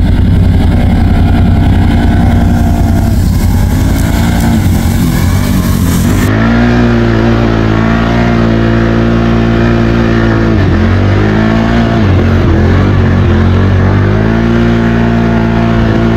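ATV engine running. About six seconds in the sound changes abruptly to a steadier engine note whose pitch dips and climbs back several times, as the revs drop and pick up again.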